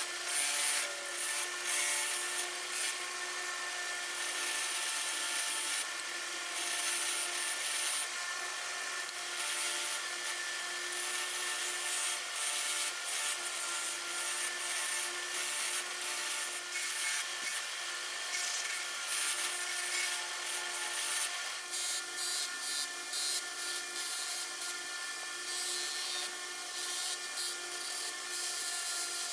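Small electric power tool running with a steady hum while metal is pressed against it, giving a rasping, abrasive scratch that swells and fades in quick surges.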